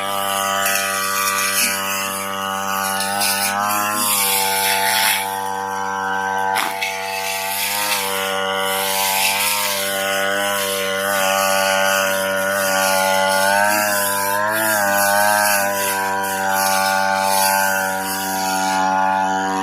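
Brush cutter engine running at full throttle while its blade cuts grass, the engine note dipping briefly and picking back up several times as the blade bites into clumps of grass.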